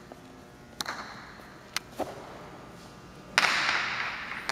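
Jai alai ball (pelota) cracking off the court's walls and floor during a rally. There are a few sharp hits, then a much louder crack about three and a half seconds in that rings on in the hall's echo.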